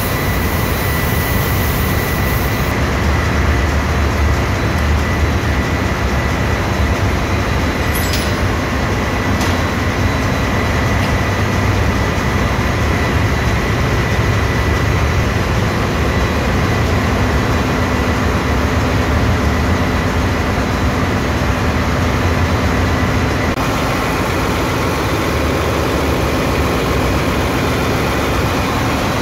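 Steady, loud drone of a ship's engine room with diesel machinery running, a thin steady whine over it.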